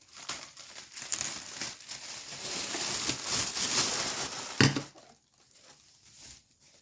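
Plastic packaging crinkling and rustling as it is handled, with a single sharp knock about four and a half seconds in, then a few faint handling clicks.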